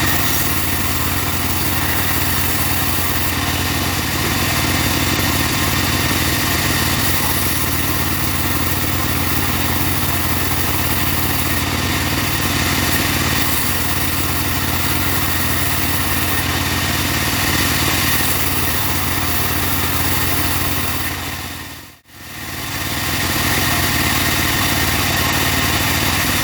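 Engine of a portable wood-cutting saw rig running steadily. Near the end it briefly fades out and comes straight back.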